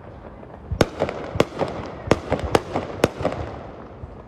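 Fireworks going off: a quick run of sharp bangs, five loud ones and a few lighter pops within about two and a half seconds, each trailing off in a short echo.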